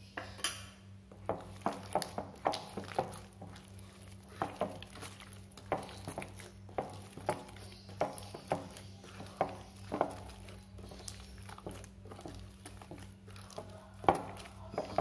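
A hand mixing and squeezing wet chicken meatball dough in a glass bowl, with irregular knocks and clatter against the glass, about one or two a second.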